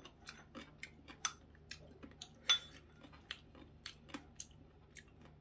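A spoon clinking and scraping against a ceramic bowl as the last of a meal is spooned up: light, irregular clicks a few times a second, with one louder clink about two and a half seconds in.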